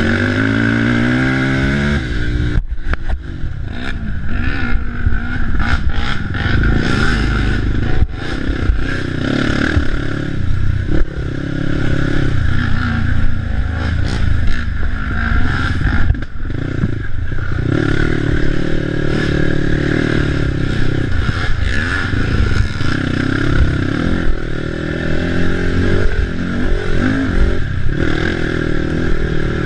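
Racing ATV engine revving up and down under hard throttle, its pitch rising and falling and cutting off sharply a few times, with clattering and scraping from the machine running over rough trail.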